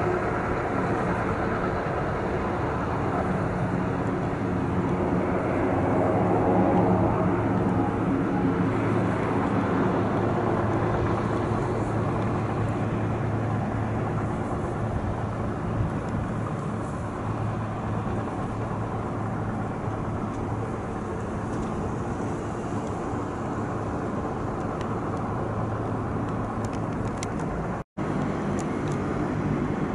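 Twin Pratt & Whitney PT6A turboprops of a Beech B200 Super King Air running at taxi power: a steady propeller and turbine hum that swells a little several seconds in. Near the end, after a brief break, the turboprops of a De Havilland Canada Dash 8-200 taxiing take over.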